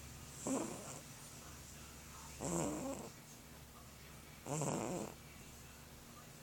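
A fat cat snoring in its sleep: three snores, about one every two seconds, each lasting about half a second.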